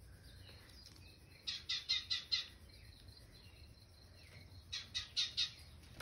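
Small birds chirping from a bird-feeder video playing on a television: two quick runs of four or five high chirps each, about two seconds in and again near the end.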